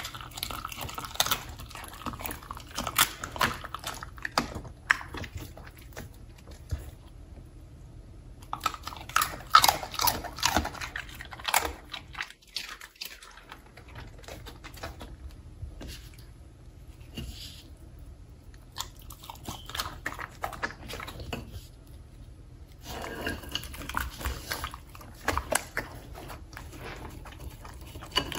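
A Samoyed chewing and biting raw meat, wet chews and sharp crunching bites coming in bursts with a few short quieter pauses.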